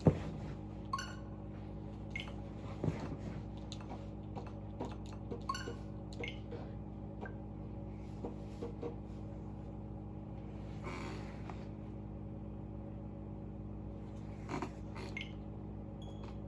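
Nintendo Switch home-menu sounds through the TV: scattered soft clicks and a few short electronic blips as the menu is navigated and the running game is closed, over a steady low hum. A sharp knock at the very start is the loudest sound.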